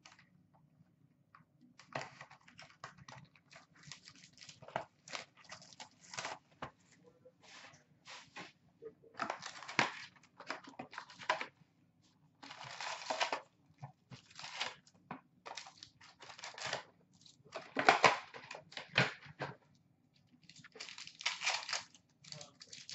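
A hockey card box being opened and its packs handled: irregular tearing, crinkling and rustling of wrapper, paper and cardboard, with several louder bursts lasting about a second.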